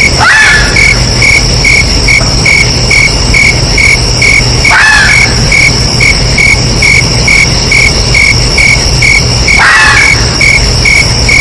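Fox calling three times, about five seconds apart, each a short cry falling in pitch, over a steady chorus of chirping crickets.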